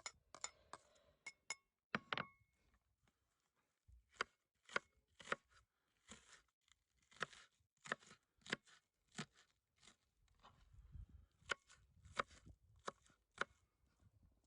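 Knife chopping food on a cutting board in separate, evenly paced strokes, about two a second, after a short pause near the start.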